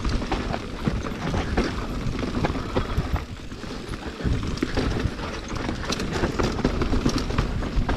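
Mountain bike riding down a rough natural trail: tyres rumbling over dirt, roots and stones, with the bike's chain and frame rattling in quick irregular clicks and knocks.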